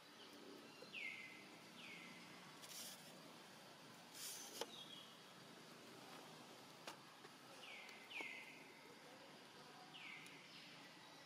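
Faint short high chirps, each sliding down in pitch, several in quick pairs, every few seconds over quiet outdoor ambience, with a few light clicks and brief soft rustles.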